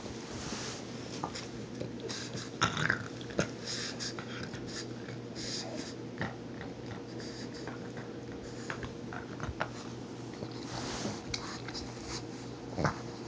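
Pug growling low and snorting over its chew bone as a hand reaches for it: a dog guarding its bone.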